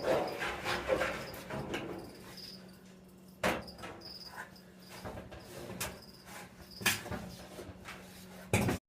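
Knocks and clatter of hands and tools working on a disassembled clothes dryer, with a few sharp bangs, over a faint steady hum and short high chirps that keep recurring. The sound cuts off abruptly near the end.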